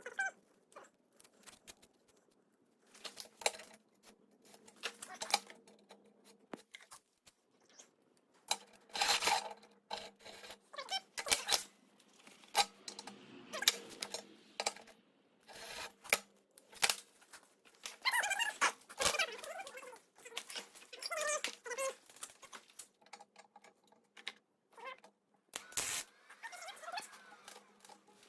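Irregular clicks, taps and short scrapes of hand work on parts, coming in clusters with pauses between, over a faint steady hum.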